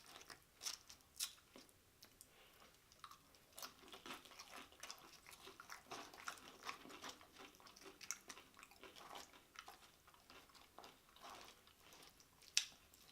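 Close-up chewing of a big mouthful of loaded nachos with tortilla chips: faint, irregular crunches and wet mouth clicks, with one sharper click near the end.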